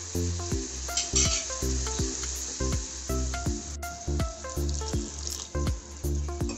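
Background music with regular pitched notes and a bass line, over a faint sizzle of tomato-onion masala frying in a kadai.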